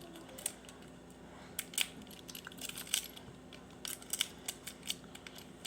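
Lock pick and tension wrench working a lock's pin tumblers: irregular small metal clicks and scrapes, a few to several a second.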